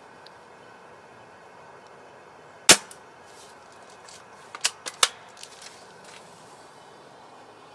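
Single-shot L85-style airsoft BB rifle firing: one sharp crack a little under three seconds in, followed about two seconds later by a quick cluster of four or five clicks and clacks.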